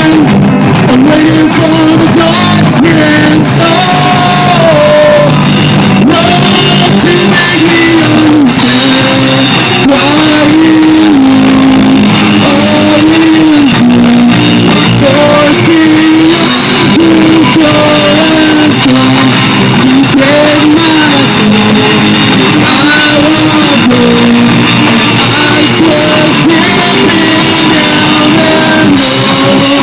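Loud live rock band playing, with a singer carrying a melody over guitar and drums.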